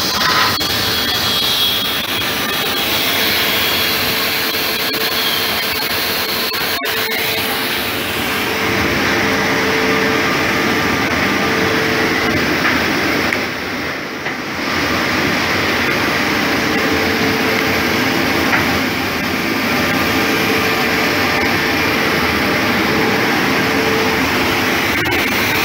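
Toscopia DLH drilling-and-mortising machine running steadily, its cutter motor giving a constant hum with a steady tone. A sharp click comes about seven seconds in, and the sound drops briefly about halfway through.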